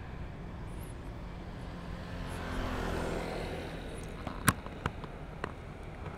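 Street traffic: a steady low rumble, with a passing vehicle swelling and fading about two to three and a half seconds in. Three sharp clicks follow near the end.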